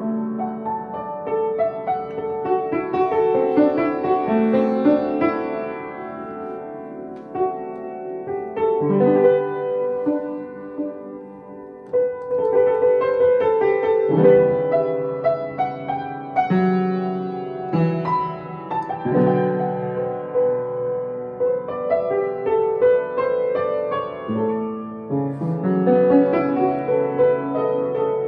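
Solo piano playing a slow, melodic piece, with notes and chords changing about every second and a brief softer passage about halfway through.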